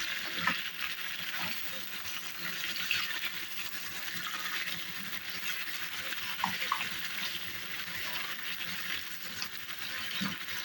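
Mutton korma sizzling in ghee in a pot while it is stirred, a steady hiss with occasional light scrapes and clicks.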